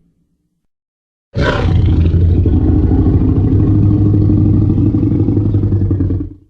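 Tyrannosaurus rex roar sound effect: one long, deep roar that starts abruptly about a second in after a short silence, holds for about five seconds, then fades out.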